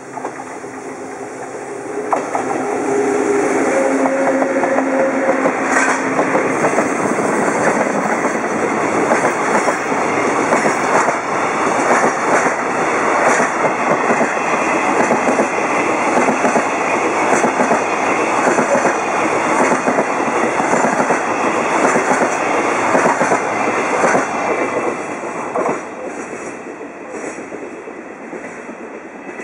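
Freight train hauled by an EF65 electric locomotive rolling past at low speed just after departure. A humming tone comes as the locomotive goes by in the first few seconds. Then come the steady rumble and clickety-clack of the empty container flatcars and Chiki rail-carrier wagons over the rail joints, fading over the last few seconds.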